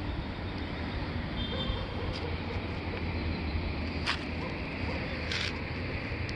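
Steady low background rumble of the kind left by distant traffic or machinery. A few short clicks cut through it, and a brief hiss comes about five seconds in.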